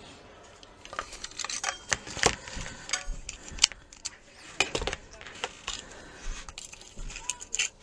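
Irregular small clicks, taps and rattles of hard plastic and metal being handled: a new PP3 battery clip and its leads worked through the hole in an LCR meter's case.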